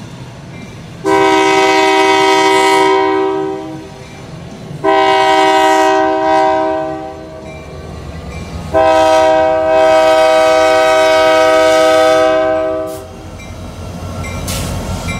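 A Union Pacific GP60 diesel locomotive's multi-chime air horn sounds three long blasts, the last one the longest, sounded for the street crossing ahead. After the horn stops, the locomotive rumbles low.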